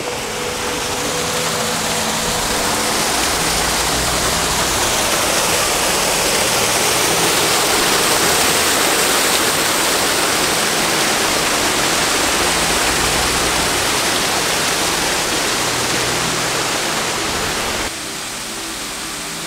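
Loud, steady rush of a tall waterfall pouring down a rock face, with soft background music beneath it. Near the end the rush drops away suddenly, leaving the music over fainter falling water.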